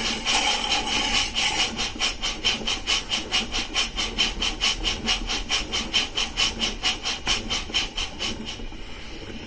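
Rapido Trains L&M 'Lion' 0-4-2 model locomotive's DCC sound decoder playing rapid, even steam-exhaust chuffs, about five a second, through its speaker. The chuffs die away near the end.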